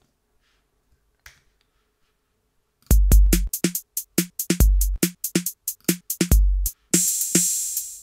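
Sampled drum-machine pattern played back from a web app: kick, snare and hi-hat samples in an even looping beat, starting about three seconds in. Deep kick thumps are the loudest hits, and a longer open hi-hat wash rings near the end.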